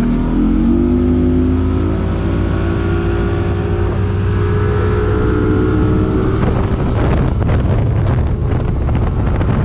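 Outboard motor of a fishing boat running at speed, its pitch climbing in the first second and then holding steady as the boat planes. From about two-thirds of the way through, wind buffeting on the microphone covers the engine tone.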